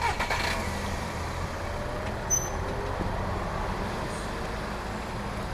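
A car driving past on a street, over a steady low vehicle rumble, with a clatter at the very start and a short high squeak about two seconds in.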